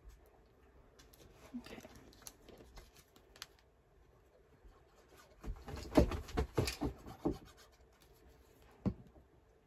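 Paper being handled and glued down on a craft desk: light rubbing and scratching, with a quick run of sharp taps and clicks just past the middle and one more tap near the end.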